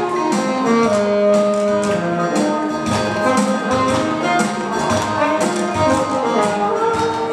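Saxophone playing a melody of held notes over accompanying music with a steady beat.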